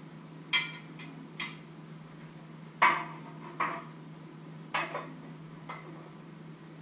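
Kitchenware clinking as it is handled at the counter: a series of sharp clinks, the loudest about three seconds in, over a steady low hum.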